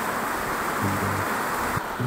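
Steady rushing of a rocky mountain stream, with a few low sustained music notes coming in about a second in.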